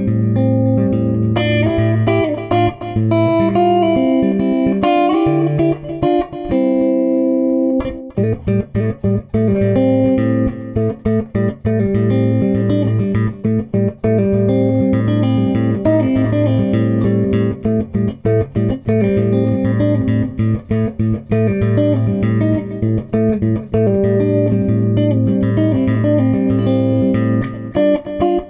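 Improvised guitar music: plucked notes over a held low bass note, turning to a quicker run of picked notes after a brief pause about eight seconds in.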